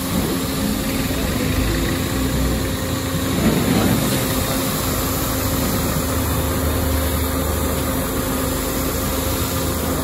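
Pressure washer running steadily, its jet of water hissing against the fins of a Komatsu D155 bulldozer radiator core to flush out packed dirt, over the steady running of the washer's motor.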